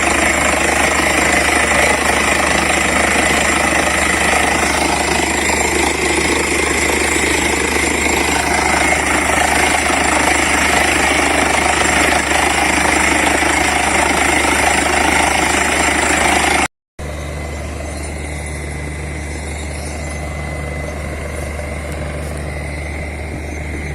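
Borewell drilling rig running loudly while drilling, a dense steady mechanical din. About two-thirds of the way through, the sound cuts out for a moment and comes back as a quieter, steady engine drone with a low hum.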